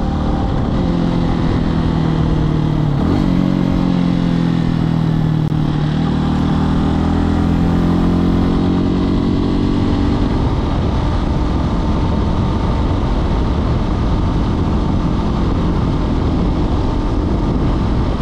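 Hawk X 250 dual-sport motorcycle's single-cylinder engine running while riding, its pitch sagging and then climbing over the first ten seconds. After that the engine note fades under a steady rush of wind and road noise.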